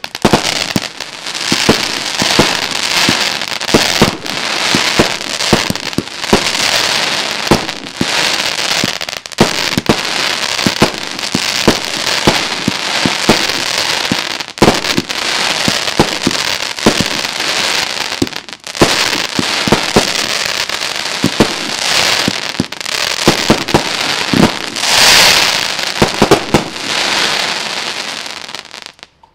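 Haokan Comitatus D firework cake firing continuously: sharp launch thumps and bursts a few times a second over a dense, unbroken crackle of crackling stars. It dies away just before the end.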